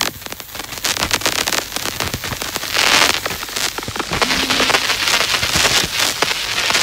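Electroacoustic noise music: a dense stream of crackling clicks and bursts of hiss, with a swell of hiss about three seconds in and a short low tone a little later.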